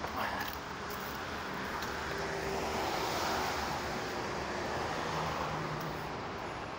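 Road traffic noise, with a car passing that grows to its loudest about three seconds in and then fades.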